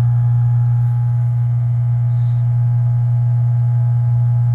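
Aquarium canister filter pumps humming: one loud, steady low hum with a few faint higher tones above it.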